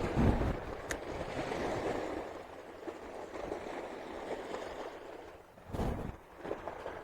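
Rushing outdoor noise of wind and lapping water, rising and falling. There is a sharp click about a second in and a short low thump near the end.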